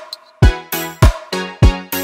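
Background electronic music with a punchy, fast kick-drum beat over sustained bass and chord tones. The beat drops out briefly near the start.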